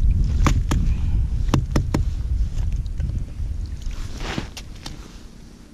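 A metal ice skimmer clinking and scraping against the ice in a fishing hole, with several sharp clicks in the first two seconds. About four seconds in, a scoop of water and slush is flung out and splatters on the ice, followed by two more light clicks. A low wind rumble on the microphone runs under it and eases near the end.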